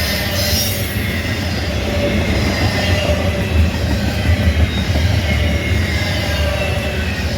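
Freight train rolling past at speed: a steady rumble of wheels on rail, with a faint high squeal from the wheels.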